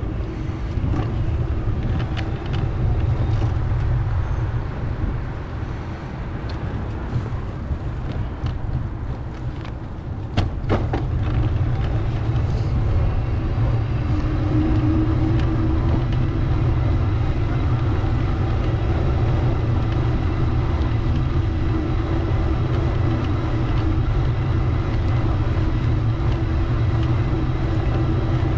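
Street traffic heard from a moving bicycle: a steady low rumble of road and wind noise with motor vehicles around. There are a few sharp clicks about ten seconds in, and a steady engine hum joins from about halfway through.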